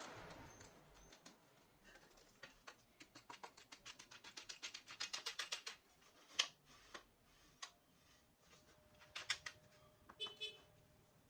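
Light clicking: a run of quick clicks that speed up to several a second, then a few scattered single clicks and taps.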